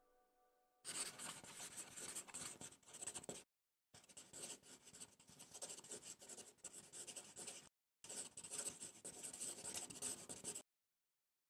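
Handwriting sound effect: the scratch of writing on paper, in three runs of quick strokes separated by short pauses.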